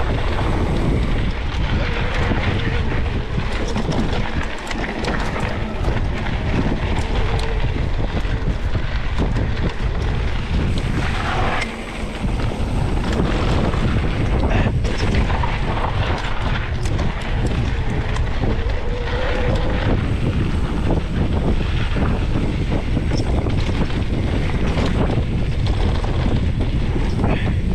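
Wind rushing over the action camera's microphone as a mountain bike descends a dry dirt singletrack, with tyre noise on the dirt and the bike knocking and rattling over bumps.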